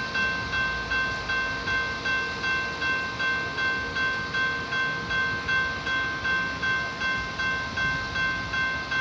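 Railroad grade-crossing bell ringing steadily at about two and a half strikes a second, with a sustained metallic ring between strikes.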